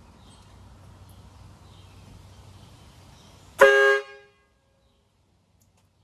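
Homemade twin-trumpet air horn built on an old DeWalt cordless drill, giving one short blast about three and a half seconds in: two low tones sounding together, loud, and cut off abruptly.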